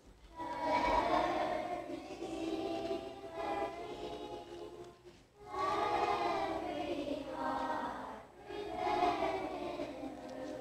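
Children's choir singing in sustained phrases, with short pauses for breath about five and eight seconds in.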